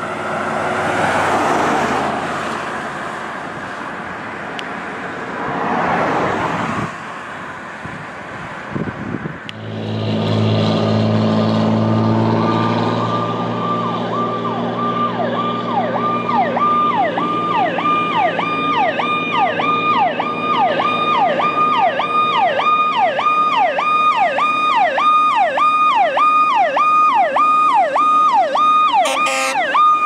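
Vehicles pass by twice in the first seven seconds, then a fire engine's diesel engine approaches from about ten seconds in. From about twelve seconds its electronic siren sounds, sweeping up and down about one and a half times a second and growing louder as it nears, with a short burst of faster sweeps near the end.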